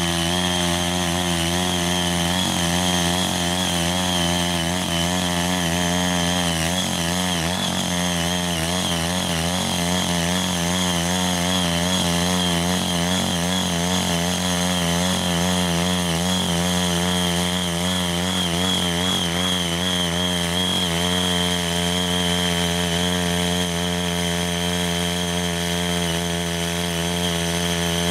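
Small engine of a Ching Yee mini power tiller running steadily as its rotary tines till loose soil, its pitch wavering slightly with the load.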